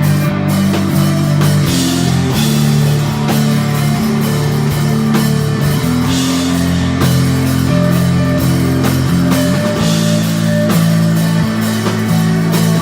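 Live rock band playing loud: held bass notes that shift every second or two and electric guitar over a drum kit with repeated cymbal washes.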